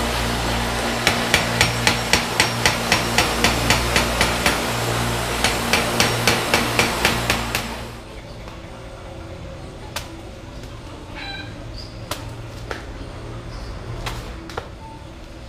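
Rapid, evenly paced hammer blows on steel at a forge, about four strikes a second with a short pause midway, over a steady workshop machine hum. After an abrupt cut the hammering stops and only a few isolated sharp cracks are left over quieter background.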